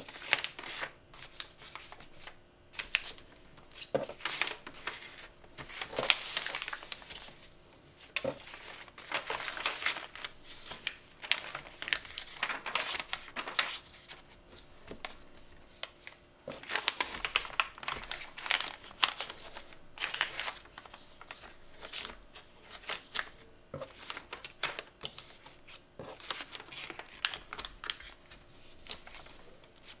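Kraft wrapping paper crinkling and rustling as it is folded and creased by hand around a flat print, in uneven rustles with short crisp crackles.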